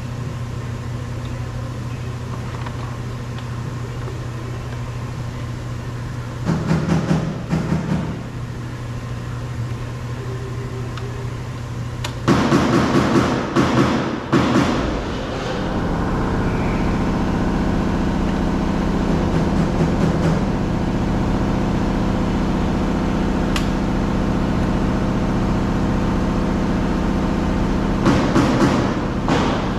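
A steady machine hum like a running engine or motor throughout. About halfway through it becomes louder and fuller, and it is broken earlier by two short bursts of louder noise.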